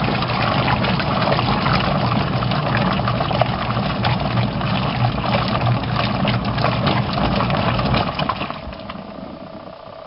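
Ultra-compact twin-tub washing machine (My Wave Double 2.2) running: a steady motor hum with constant rattling and churning, winding down and quieting from about eight and a half seconds in.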